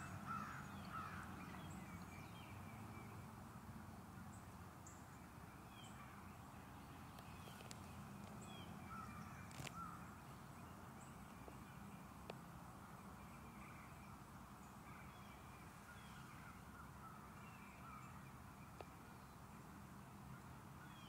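Quiet outdoor ambience: scattered faint bird calls over a low steady hum.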